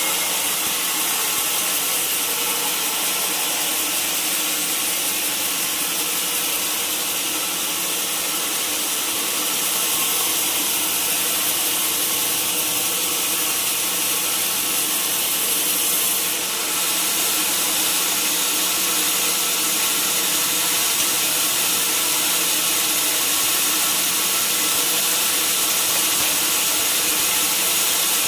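Sawmill saw running steadily as it cuts through a mahogany log: a continuous hiss of sawing over a constant machine hum, with a brief dip about halfway through.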